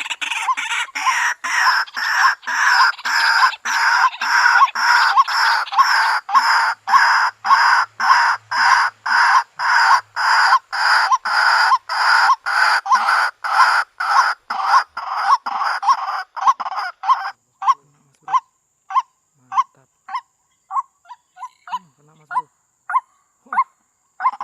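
White-breasted waterhen calling: loud repeated 'kwak' notes at about two to three a second, the lure call used to draw waterhens to a trap. About two thirds of the way through the calls thin out into sparser, fainter single notes.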